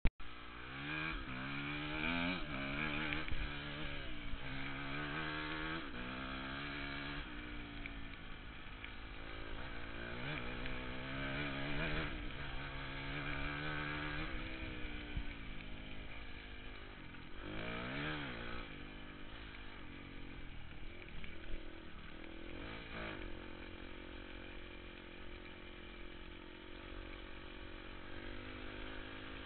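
Dirt bike engine under way, its pitch climbing and dropping again and again as it is revved hard, settling into a steadier, lower drone near the end. Wind rumbles on the microphone underneath.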